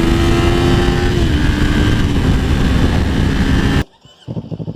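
Kawasaki 400 parallel-twin engine running through a Fuse Racing slip-on exhaust with its dB killer fitted. The note holds steady, then eases down in two small steps. Near the end it cuts off abruptly to a much quieter, even pulsing engine sound.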